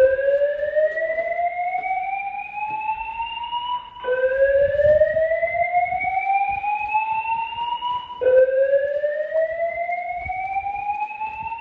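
Fire alarm voice-evacuation speaker sounding a slow whoop evacuation tone between its spoken messages: three rising sweeps, each about four seconds long, the third running on past the end.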